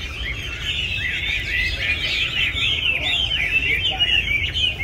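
Caged Chinese hwamei (red-plumaged 'lông đỏ' type) singing a fast, unbroken run of varied high whistled notes.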